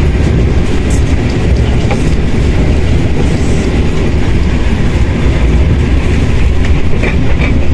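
A moving train: a loud, steady rumble with faint rail clatter.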